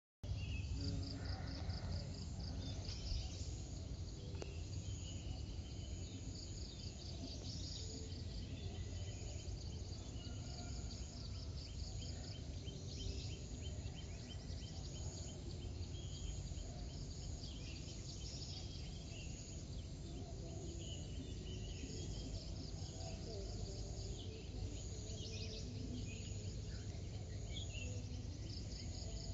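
Dawn ambience: insects trilling in repeated high pulsed bursts, with scattered bird chirps and calls, over a steady low rumble.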